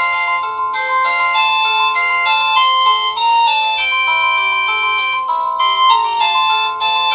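Cacazi HYA10 wireless doorbell receiver playing one of its electronic melody ringtones: a continuous tune of short, evenly stepped notes.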